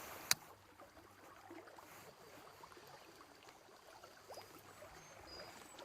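Faint mountain stream water running, with a single sharp click about a third of a second in.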